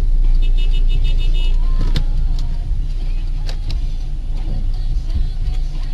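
Car cabin noise on a dashcam recording: steady engine and road rumble. Just after the start, a quick run of short high beeps sounds for about a second, and a few sharp clicks follow.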